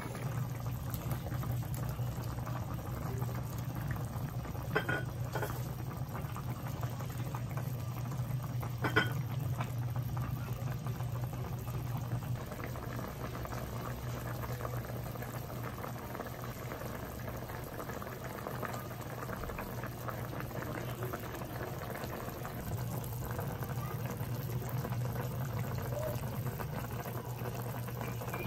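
Chicken and potato stew bubbling at a steady simmer in a wok, over a steady low hum. Two short clicks, about five and nine seconds in, stand out above the bubbling.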